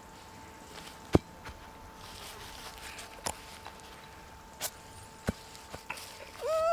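Quiet outdoor ambience with a faint steady high whine, broken by a few sharp knocks and taps, the loudest about a second in. Near the end comes a short high-pitched voice-like sound, rising a little and then held.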